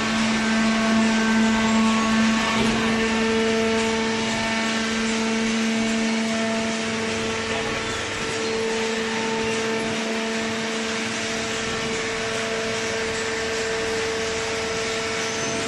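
Horizontal hydraulic waste paper baler running: a steady machine hum with a droning tone over a haze of mechanical noise.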